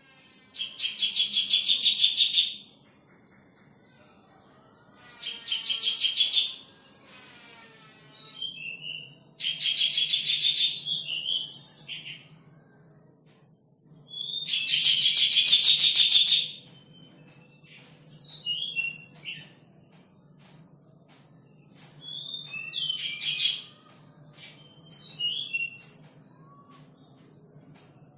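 Bar-winged prinia (ciblek) nestlings begging in the nest: bursts of rapid, high-pitched chirping, each lasting one to two and a half seconds, repeated about every three to four seconds. Toward the end the chirps come in shorter, scattered runs.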